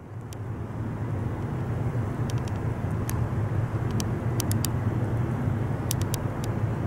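Steady low diesel-engine drone of a ChME3 shunting locomotive running, with the video fading in over the first second. Faint sharp high ticks occur now and then.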